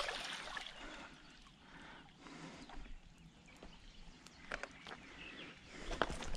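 Scattered light taps and knocks, becoming more frequent near the end, as a small asp flaps and twitches while being held and unhooked.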